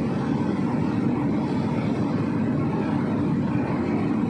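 Hitachi hydraulic excavator's diesel engine running steadily at working revs.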